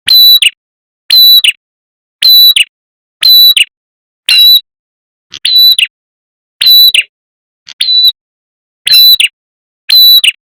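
Looped lure recording of a red-headed prenjak calling: a short, high call repeated about once a second, each call ending with a drop in pitch. The recording is played very loud and distorts.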